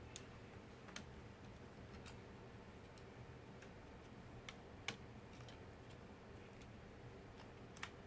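A handful of small, sharp clicks at irregular intervals, the loudest about five seconds in, against near silence: cable connectors being unplugged by hand from a 15-inch unibody MacBook Pro's logic board.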